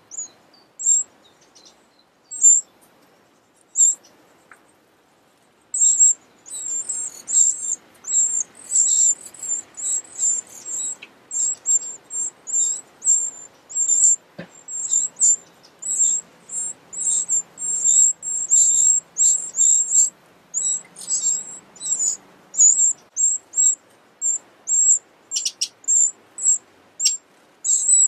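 Eurasian wren nestlings giving thin, high-pitched begging calls: a few scattered calls at first, then from about six seconds in a dense, almost unbroken chorus as they beg for food.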